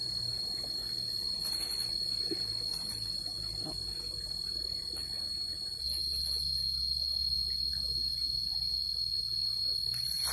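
An insect calling with a steady, unbroken high-pitched tone that grows louder about six seconds in.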